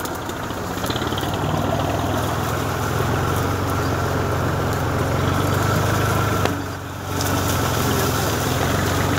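Tractor engine running steadily as the tractor pushes through thick thorny brush; its low hum strengthens about three seconds in and dips briefly near the end.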